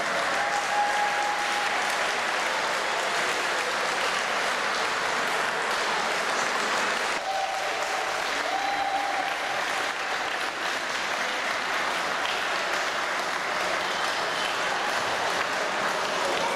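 Swimmers splashing in an indoor pool, a steady wash of water noise.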